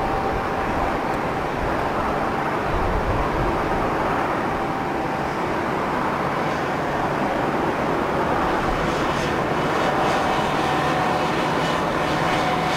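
Boeing 737-800's CFM56-7B jet engines running during the landing roll-out, a steady roar with a thin steady whine through it. A low hum joins near the end.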